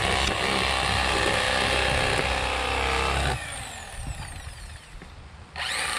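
Electric fillet knife running steadily as it cuts through a tilapia fillet. A little over three seconds in it is switched off and winds down with a falling whine, then starts up again near the end.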